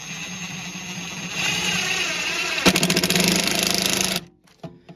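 Cordless impact driver driving a screw into a sheet-metal panel: the motor spins up, strains louder as the screw bites, then hammers rapidly as it tightens, and stops sharply about four seconds in.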